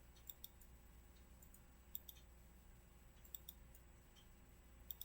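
Computer mouse buttons clicking faintly in quick pairs, about every second and a half, as wires are placed in the schematic, over a low steady hum.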